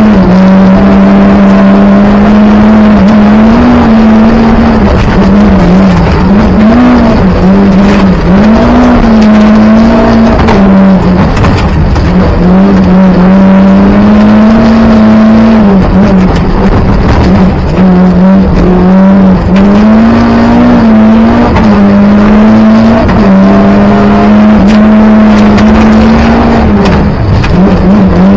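Rally car's engine running hard at high revs, heard from inside the cabin: a loud, steady engine note that dips and climbs again several times as the car shifts gear and slows for bends, with gravel clicking and rattling against the car's underside.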